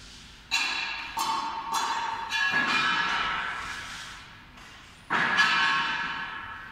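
Sharp metallic clangs with a bell-like ring: five strikes in the first three seconds, then a louder one about five seconds in, each ringing on and fading.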